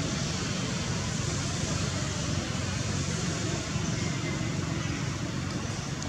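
Steady outdoor background noise: a low, flickering rumble under an even hiss, with no animal calls standing out.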